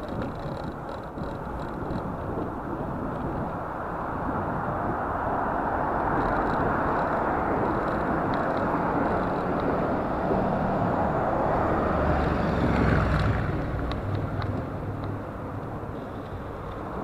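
Wind rushing over a bike-mounted action camera while cycling along a city road, with motor traffic. The noise builds over the first half and peaks with a low rumble about twelve to thirteen seconds in, then eases.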